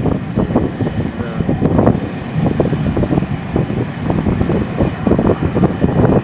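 Wind buffeting the microphone at the open window of a moving passenger train's rear coach, over the train's running noise.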